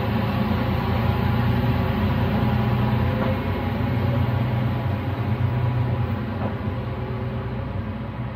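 Diesel engine of a single-car Nagaragawa Railway diesel railcar pulling away from the station, a steady low drone that eases off slightly near the end as the car draws away.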